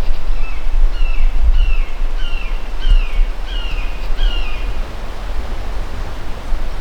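A bird calling a series of about seven short, down-slurred whistled notes, evenly spaced, which stop about four and a half seconds in. Under it runs a steady low rumble of wind noise.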